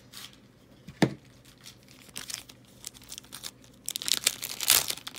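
Foil wrapper of a trading card pack being crinkled and torn open, turning into a dense flurry of crackles from about four seconds in. A single sharp click comes about a second in.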